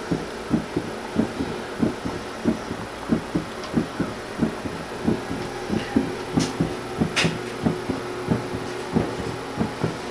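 Rhythmic heartbeat pulses, about two a second, over a steady hum: a cat's heart as heard through an ultrasound machine's Doppler audio during a cardiac scan.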